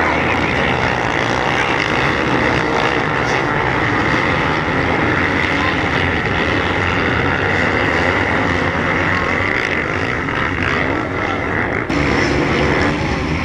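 A pack of motocross bikes racing, many small engines running and revving together in a continuous dense buzz.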